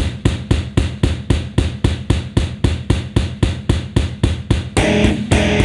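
Instrumental intro of a punk rock song: a steady, driving drum beat of about five hits a second over low held bass notes, with the full band and distorted guitar coming in near the end.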